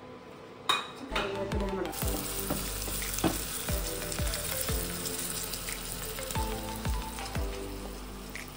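Sliced onions and curry leaves dropping into hot oil in a small pan with a clatter, then sizzling steadily as they fry. A wooden spoon stirs and scrapes the pan every half second or so. This is the onion tempering, fried as the final topping for the stew.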